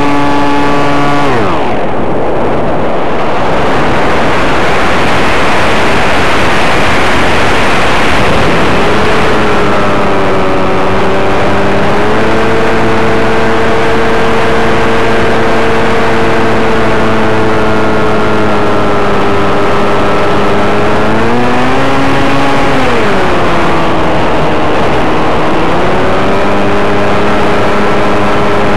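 Onboard-mic sound of an MS Swift 2 RC plane's Turnigy 1100kv brushless motor and propeller, loud and close. The motor whine drops away about a second in, leaving rushing air noise as the plane glides; the motor comes back on about nine seconds in, holds steady, briefly rises and falls past twenty seconds, and runs on.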